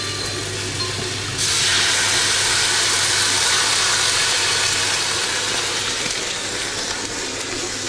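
Food sizzling in hot fat: a loud hiss starts suddenly about a second and a half in and slowly dies down, over a steady low hum.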